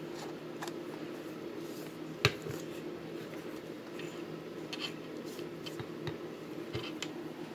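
Sharp clicks and light rustling as a razor and its packaging are handled, with one loud click about two seconds in and a few softer ones later. A steady low hum runs underneath.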